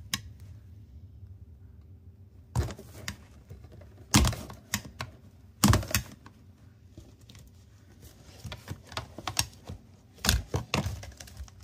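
Irregular hard plastic clicks and knocks as a dishwasher's pump housing is worked by hand, pressing at its locking tab to free the pump. Four sharper knocks stand out, and a run of lighter ticks follows near the end.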